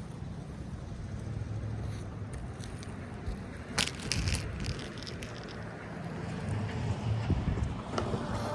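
A few quick metallic clinks, like small metal pieces knocking together, about four seconds in, over a steady low rumble.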